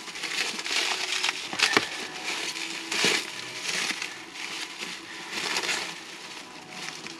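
Packaging being handled and unwrapped, crinkling and rustling in uneven bursts, with a couple of sharp clicks about two and three seconds in.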